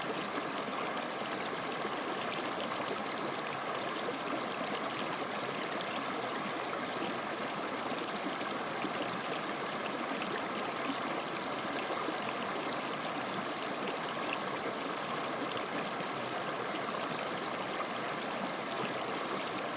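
Mountain river flowing over rocks: a steady, unbroken rush of water.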